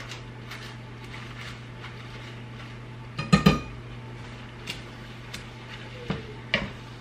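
Kitchen utensils knocking and clinking against a frying pan of spinach as the leaves are turned and stirred, with a louder clatter about three and a half seconds in and two more knocks of a wooden spoon near the end, over a steady low hum.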